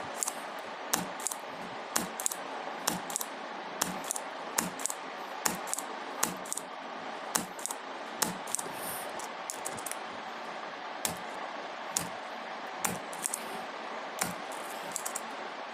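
Spring-loaded desoldering pump (solder sucker) being cocked and fired again and again to pull molten solder from circuit-board through-holes: sharp clicks about once a second over a steady hiss.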